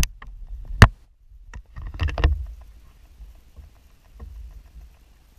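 Paddling a skin-on-frame wooden canoe on calm water: two sharp knocks in the first second, then a paddle stroke swishing through the water about two seconds in, followed by faint small ticks.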